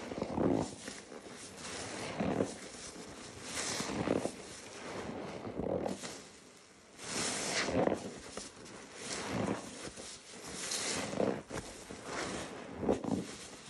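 Soap-soaked kitchen sponge squeezed over and over by rubber-gloved hands in a bowl of thick suds, squelching and crackling with each squeeze, about eight squeezes at a steady pace.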